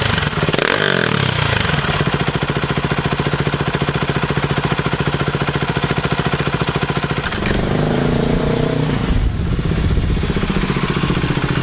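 Husqvarna 701 Svartpilen/Vitpilen's single-cylinder engine through an Arrow Pro Race full exhaust. The revs fall back from a rev in the first second or so, then it idles with an even pulsing beat, and there is a short blip of the throttle about two-thirds of the way in.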